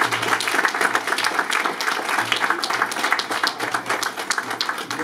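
Banquet audience applauding: many hands clapping in a dense, steady patter.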